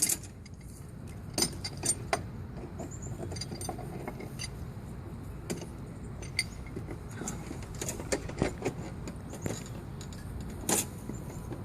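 Scattered light clinks and knocks of small hard objects being handled, over a steady low rumble.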